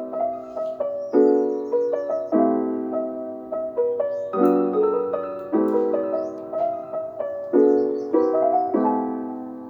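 Soft background piano music: slow chords struck about once a second, each left to ring and fade.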